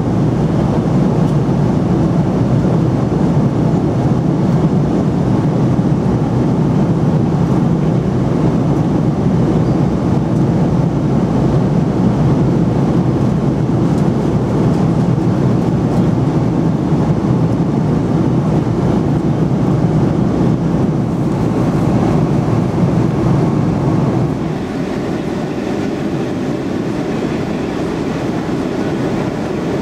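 Steady cabin noise of an Airbus A300B4-600 in flight: a constant drone of the jet engines and the airflow past the fuselage. About four-fifths of the way through it steps down a little quieter and less deep.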